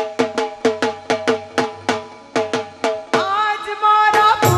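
Instrumental interlude of a devotional folk song: hand-drum strokes at a steady pace of about four a second, then held chords from the melody instruments come in about three seconds in and the full band, with a deeper bass, joins near the end.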